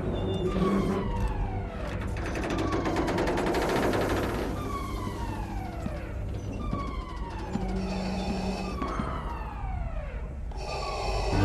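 Sci-fi blaster shots fired over and over, each a quick zap falling in pitch, about one to two a second, over a low steady hum.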